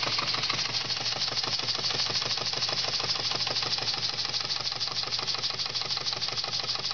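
Model steam engine running fast while it drives a small generator: a rapid, even chuffing of exhaust steam over a steady hiss.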